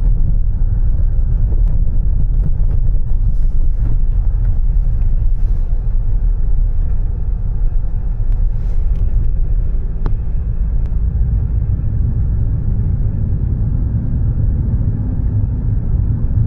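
Car on the move: a steady, loud low rumble of road and engine noise.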